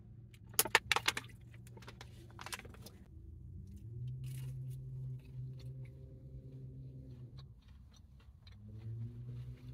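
A plastic water bottle crackling and clicking as it is handled and opened, followed by small ticks of drinking. A steady low hum runs under it from about four seconds in, breaking off briefly near the end.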